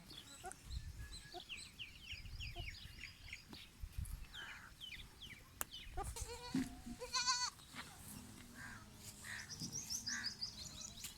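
A goat bleats, one wavering, quavering bleat about six to seven seconds in, the loudest sound here, over many short high chirps.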